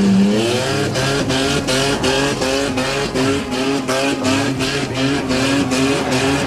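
Holden VN–VS Commodore's 3.8-litre V6 revved over and over, about two rising blips a second, the rhythmic 'mang mang' sound these V6 Commodores are known for.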